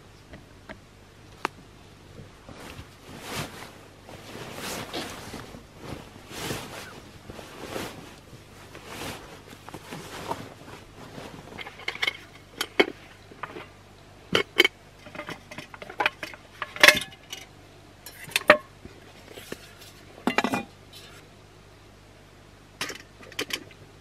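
Rustling of packs and clothing, then metal camping cookware clinking and clattering as a pot, its lid and a small stove are handled and set up.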